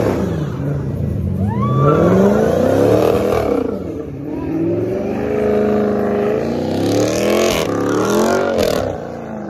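Dodge Charger doing a burnout: the engine is revved hard up and down several times with its rear tyres spinning. A squeal of tyres rises and falls over it.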